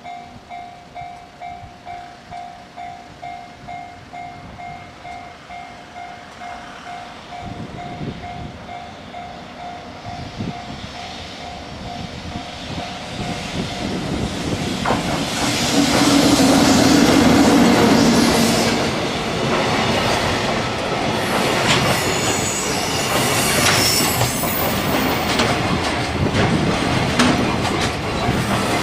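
Japanese level-crossing alarm ringing in a steady pulsing two-tone ding-ding. An EF64 electric locomotive hauling a container freight train approaches and passes, loudest a little past halfway. The container wagons then roll over the crossing with rhythmic wheel clatter and high-pitched wheel squeals.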